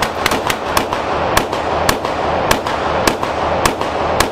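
Pistol shots from a .22 LR handgun fired in quick succession in an indoor range, about ten shots, close together at first and then slowing to roughly two a second, each trailed by the range's echo.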